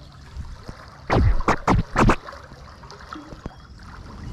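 Tidal water moving through a rocky channel, with a quick cluster of about five loud, short bumps about a second in.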